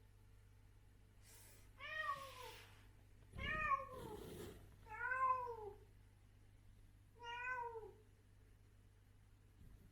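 Adult female cat meowing four times, each meow rising and then falling in pitch, with a little rustling around the first two.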